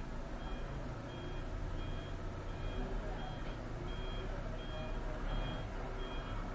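A repeating electronic beep, about one and a half beeps a second, over a steady low rumble.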